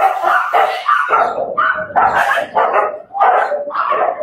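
A crowd of dogs barking together, one bark overlapping the next in a continuous loud chorus.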